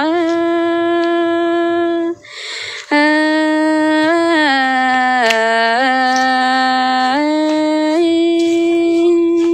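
A woman singing a Thái (Tai) folk song in long drawn-out notes on a single vowel, stepping between a few pitches. She breaks off briefly for a breath about two seconds in, then holds on again.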